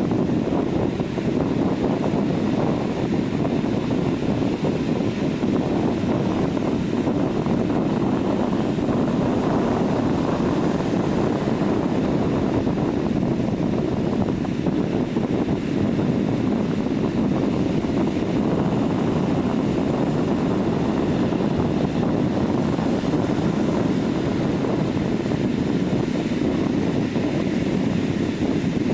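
Ocean surf washing onto a sandy beach: a steady rushing noise that swells and eases slowly.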